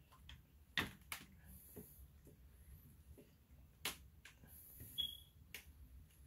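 Scattered clicks and knocks from handling a heat press's handle and pressure knob, about half a dozen spread over the span, with one short high tone about five seconds in.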